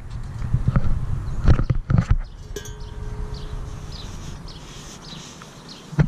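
Handling noise from a stainless steel exhaust header being lifted and wiped with a cloth: rubbing and several knocks, loudest in the first two seconds, then quieter rubbing. Faint, short high chirps repeat through the second half.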